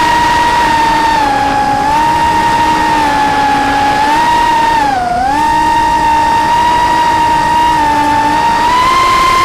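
FPV quadcopter's brushless motors and propellers whining steadily, the pitch dipping as the throttle eases, most sharply about halfway through, then rising slightly near the end.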